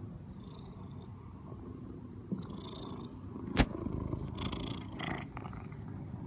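Domestic cat purring right at the microphone, a fast steady rumble throughout, with one sharp knock about three and a half seconds in.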